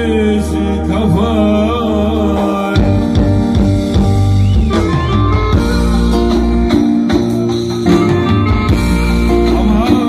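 A man singing a Turkish folk song into a microphone with wavering vibrato, over electronic keyboard accompaniment with a steady bass line, played through a PA speaker.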